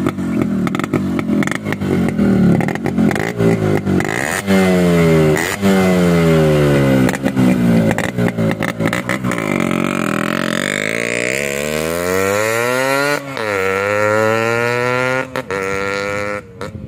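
Yamaha RX two-stroke single-cylinder motorcycle fitted with a thicker-walled silencer core, running and revved in several short throttle blips whose pitch falls away after each. It is then ridden off, its note climbing, dipping once at a gear change and climbing again.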